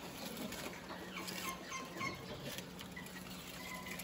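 Faint rustling and light clicking of rabbits chewing and tugging at a whole comfrey leaf in a wire-mesh cage, mixed with dried comfrey being crumbled onto their feed. A few faint, brief high whistle-like tones sound in the background.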